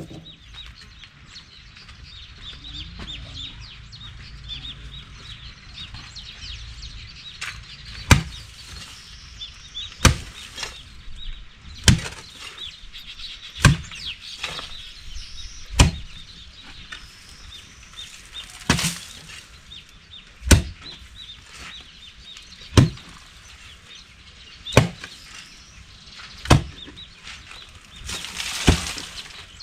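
A digging tool striking the ground again and again while a hole is dug, one heavy blow about every two seconds, starting about eight seconds in.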